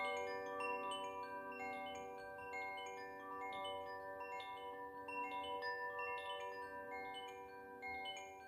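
Koshi chime in the Ignis tuning, a bamboo-bodied wind chime with tuned metal rods, being swung so that its clapper strikes note after note. The bright tones ring on and overlap into a steady shimmering wash.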